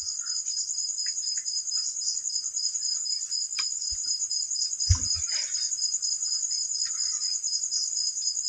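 Crickets trilling steadily, a fast pulsing high-pitched chirr. There is one dull knock about five seconds in.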